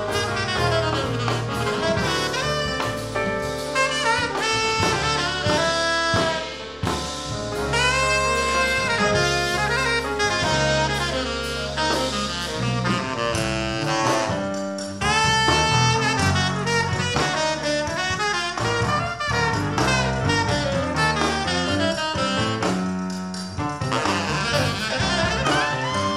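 Live jazz sextet playing: a tenor saxophone carries the lead line over electric piano, guitar, electric bass and drum kit, with the notes moving quickly up and down.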